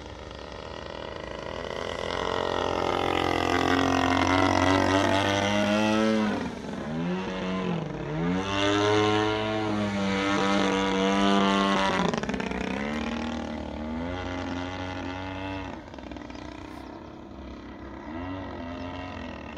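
Radio-controlled model airplane's motor and propeller droning in flight. It grows louder in the middle as the plane comes close, and its pitch dips and climbs back up several times as it manoeuvres.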